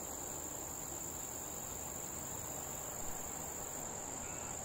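Insects giving a steady, high-pitched trill.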